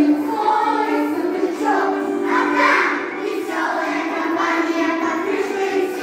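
A choir of young children singing a song together at a steady level, one held note after another.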